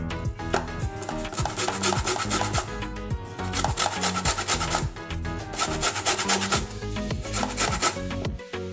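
A lemon being rubbed over the fine holes of a flat stainless-steel grater to zest its outer peel, in four rasping passes of about a second each, over background music.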